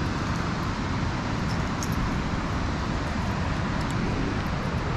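Steady rushing roar of water pouring out of a dam into the river below.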